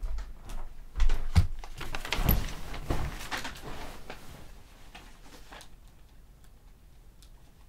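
Footsteps, then a person climbing onto a bed: several thumps and bedding rustling in the first three seconds, fading to faint rustles and a few small clicks.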